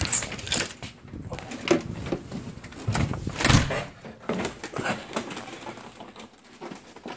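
Handling noise: a few irregular knocks and scrapes as an object with a white plastic handle is gripped and moved, the loudest a little past the middle.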